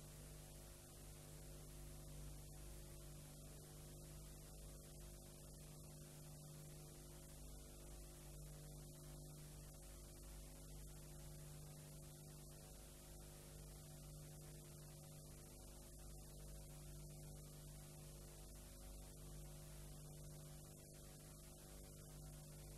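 Near silence: a faint steady electrical hum under a constant hiss.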